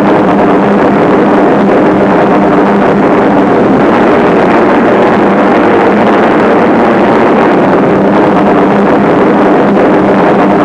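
Steady, unchanging drone of four-engined piston bombers' engines in flight, a close-packed hum with no pauses.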